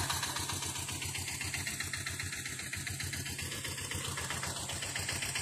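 Small single-cylinder vehicle engine running at idle, with a rapid, even beat.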